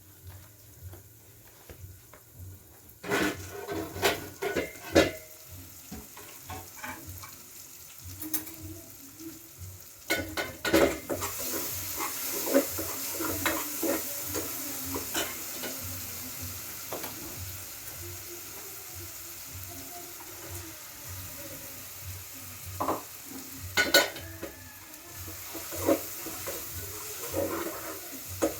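Food frying and sizzling in a pan while a utensil stirs it, with clinks and knocks against the pan. The sizzling comes in about a third of the way through and carries on steadily under the stirring knocks.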